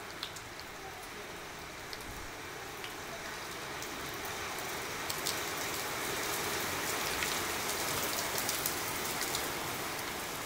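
Rain falling on a wet tiled rooftop terrace: a steady hiss with scattered sharp drop ticks, growing a little louder and denser about halfway through.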